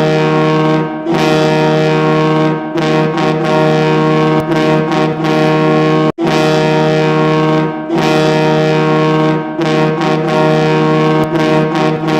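Hockey goal horn blasting one long, steady, low-pitched tone over a goal song with a beat, with a split-second dropout about six seconds in.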